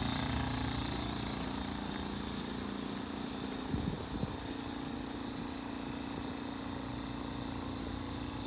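Air compressor running steadily, pushing air through the pool's plumbing to blow the water out of the lines for winterizing. A few brief low thuds come about halfway through.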